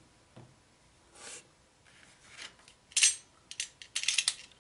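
Cardboard mailer box and its paper-wrapped contents being handled: a soft rub about a second in, then a quick run of sharp taps and rustles in the last second and a half.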